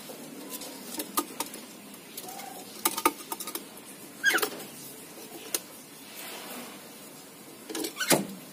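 Javan mynas at a wooden nest box: scattered clicks, taps and scratches of feet and bill on wood, a short call that drops in pitch about four seconds in, and a flurry of wingbeats near the end as one bird flies off.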